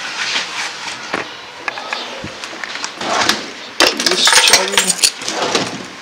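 Handling noises of things being grabbed and packed: knocks, rustles and small metal-and-glass clinks from objects picked out of a cluttered drawer. The loudest, densest clatter comes about four seconds in.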